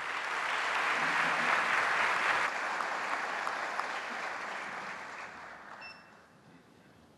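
Audience applauding, building briefly and then dying away about six seconds in.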